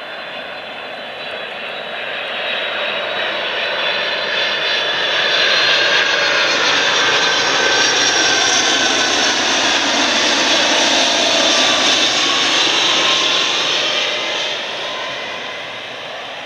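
The GE CF6-series turbofans of a Boeing 747-400 freighter passing low on landing approach. The jet noise grows louder, peaks in the middle and fades near the end, carrying a hard, metallic, high-pitched whine whose tones slide down in pitch as the aircraft goes by.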